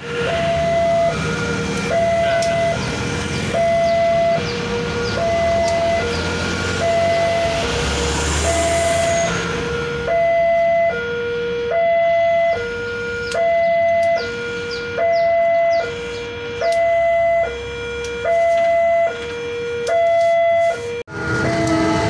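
Railway level-crossing warning alarm sounding as the barrier closes: an electronic two-tone signal alternating a higher and a lower tone, about one pair every one and a half seconds. Motorbike and road-traffic noise runs beneath it, heavier in the first half.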